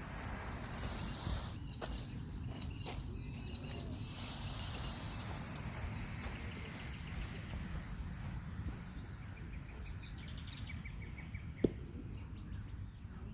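Scratchy hiss of a hand tool being swept over the grass of a cricket pitch, loosening dead leaf and broken stems, coming and going in strokes. Small birds chirp in quick runs throughout over a low outdoor rumble, and there is one sharp click near the end.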